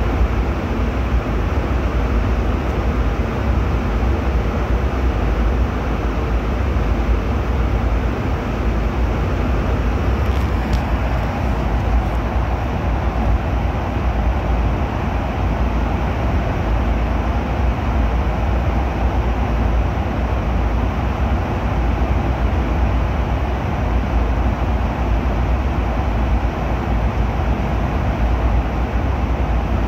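Airliner cabin noise in flight: a steady, loud, low rumble that holds unchanged throughout.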